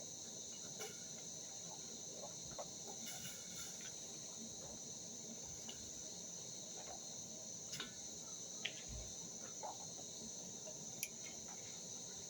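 Crickets chirring steadily at a high pitch, with a few scattered light clicks and knocks.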